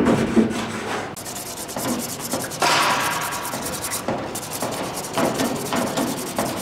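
Rapid back-and-forth hand sanding of a small steel part, abrasive rubbing on metal starting about a second in, with a brief pause about four seconds in.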